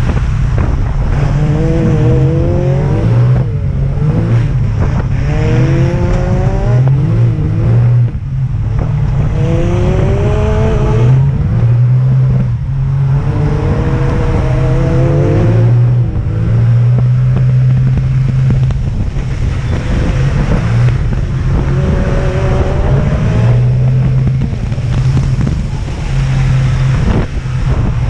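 Side-by-side UTV engine driven hard, heard from on board. The revs climb repeatedly as it accelerates and drop away between corners, about ten times over a constant low engine drone.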